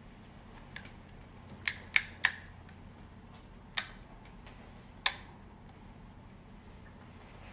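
Sharp plastic clicks from a clear plastic speculum being handled on a handheld colposcope: a faint one, then three in quick succession, then two more spaced about a second apart.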